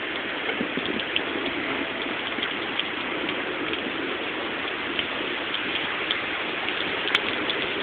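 Steady rain from a hurricane falling, with scattered drops ticking close by.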